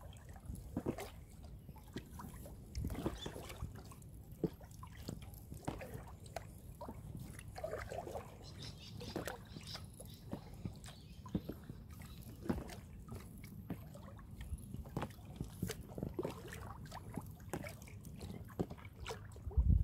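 Kayak paddle strokes on an inflatable kayak: irregular splashes and sloshing as the blades dip, water trickling off them, and occasional light knocks against the hull, over a steady low rumble.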